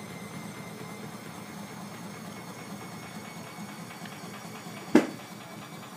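Bosch Maxx 40 WFC2445 front-loading washing machine running with a steady hum, with one sharp knock about five seconds in.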